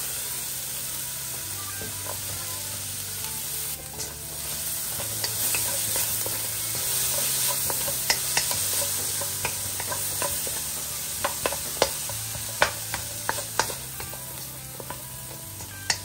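Diced bell peppers and onions sizzling in a stainless steel wok, with a wooden spatula scraping and tapping against the pan as they are stirred. The taps come more often in the second half.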